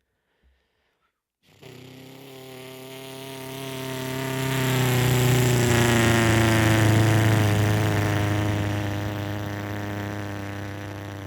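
A man's vocal imitation of a Cessna 172 single-engine propeller plane flying past: a buzzing drone that starts about a second and a half in, swells to its loudest midway, then drops in pitch and fades away, imitating the Doppler effect of a flyby.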